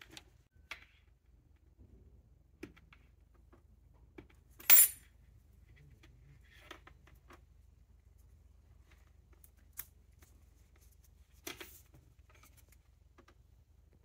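Scattered light clicks and taps of a razor blade cutting and handling a USB cable's plastic jacket on a desk. One louder, sharp clink comes about five seconds in.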